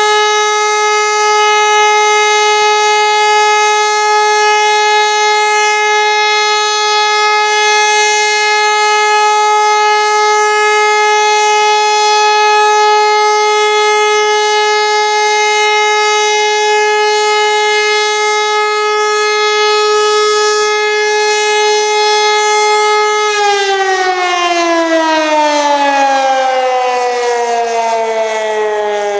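Pneumatic HLS 273 high-power civil-defence siren holding one steady, loud tone, the continuous all-clear (Entwarnung) signal. About 23 seconds in the air supply is cut and the siren winds down, its pitch falling steadily.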